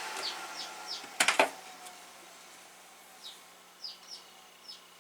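Rack server's fans winding down, their rushing noise fading away over the first couple of seconds. A quick cluster of sharp clicks comes about a second in. Then a bird gives short, high, falling chirps several times against faint room tone.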